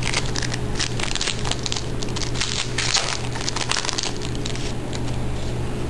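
Shiny foil trading-card pack wrapper being torn open and crinkled by hand: a dense, irregular crackling, thickest in the middle.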